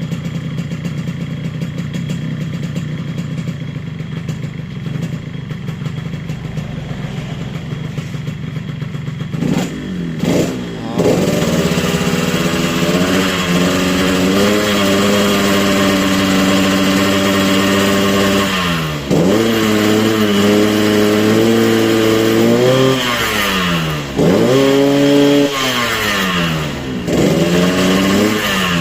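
Yamaha RX-King's two-stroke single-cylinder engine running while its carburettor is set for the 'ngorok' snoring exhaust note: a steady low idle, then revved up about ten seconds in and held at raised revs, with the throttle dropped and quickly reopened three times near the end.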